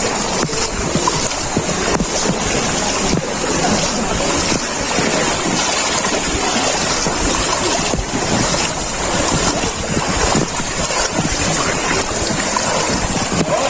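Wind buffeting the microphone over the wash of floodwater, a steady, loud rushing noise with uneven gusty crackle.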